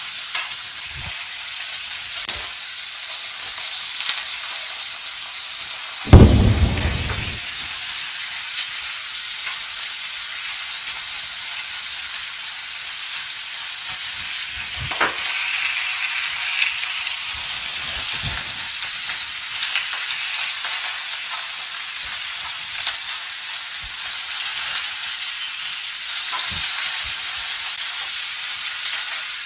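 Honeycomb-cut pork belly frying in a pan with a steady sizzle. A few light clicks of tongs against the pan, and one loud knock about six seconds in.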